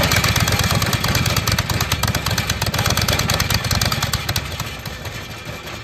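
A towable leaf vacuum's 20.5 horsepower Kohler engine running just after being started, with a rapid, even exhaust pulse; its exhaust is hanging loose. The sound drops gradually in level near the end.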